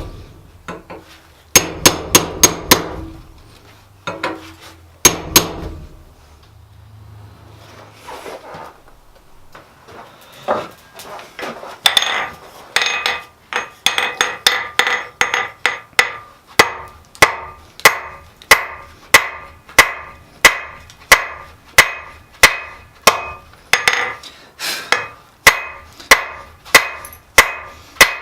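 Blacksmith's hammer striking steel on an anvil, each blow ringing: a few quick bursts of strikes in the first few seconds, a quieter lull with lighter knocks, then steady rhythmic forging blows about two a second.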